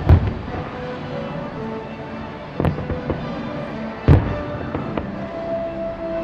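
Aerial firework shells bursting: a sharp bang at the start, another about two and a half seconds in and a third about four seconds in, with smaller cracks between, over music playing in the background.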